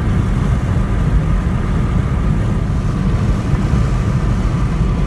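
Steady wind and road noise inside a moving car with a window open, a loud low rumble of air buffeting the cabin.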